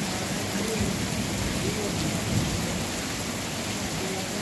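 Heavy rain falling steadily on concrete pavement: a dense, even hiss of drops.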